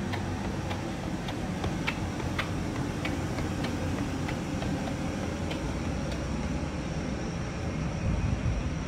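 Light footsteps on a paved walkway, a few steps a second, over a steady low outdoor rumble.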